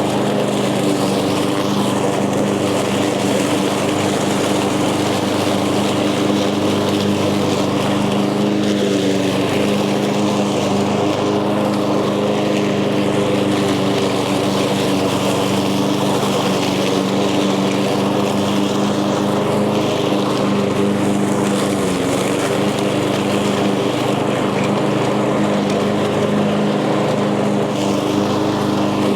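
Echo gas walk-behind lawn mower running steadily at a constant engine speed while cutting through tall, thick grass and weeds.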